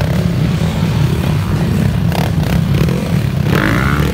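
Several off-road dirt bike engines running and revving unevenly as the bikes push through a tyre obstacle.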